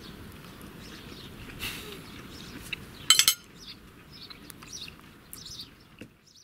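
Faint outdoor background with scattered bird chirps, and a short clink of cutlery a little after three seconds in, the loudest sound here. The sound falls away near the end.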